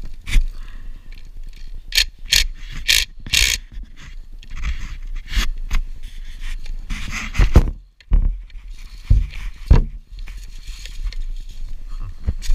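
Close scraping and rustling handling noise from hands and tool work on the trike. A run of four short, sharp bursts comes about two to three and a half seconds in, and a few heavy thumps follow later.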